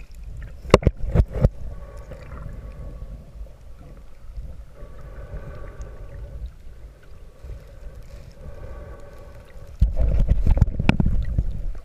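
Muffled underwater sound picked up by a camera held below the surface while snorkeling: a couple of knocks about a second in, then a faint steady hum, and from about ten seconds in a loud low rumble of water moving against the camera.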